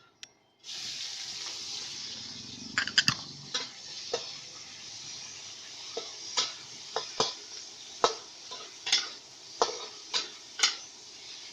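Shrimp and squid hitting hot oil in a wok, a loud sizzle that starts suddenly just under a second in and keeps going as they fry. A metal spatula clanks and scrapes against the wok at irregular intervals as they are stir-fried.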